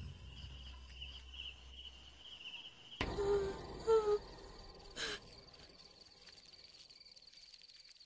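Crickets chirping in a steady, pulsing trill. About three seconds in the trill changes to a higher one, with two short low calls and a soft knock about a second apart.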